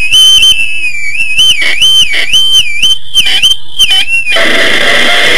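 Loud, high feedback squeal from an electric guitar's pickups with a small handheld amp held right against them. The whistling tone wavers up and down about twice a second, and about four seconds in it breaks into a harsh, noisy distorted rush.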